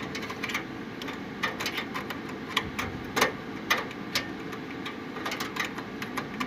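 Irregular light clicks and taps, one to three a second, from hands handling the repaired computer mouse while it is being connected for testing.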